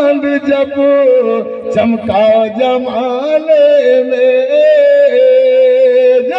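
A man singing a devotional naat into a microphone, drawing out long held notes that waver and slide slowly in pitch.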